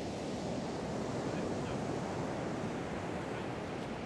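Ocean surf breaking on a gravel beach: a steady rush of waves.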